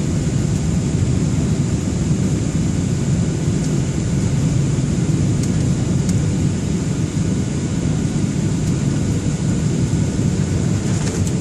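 Airliner cabin noise on final approach: a steady, loud low rumble of the jet's engines and rushing air heard from inside the cabin, with a thin steady high whine above it.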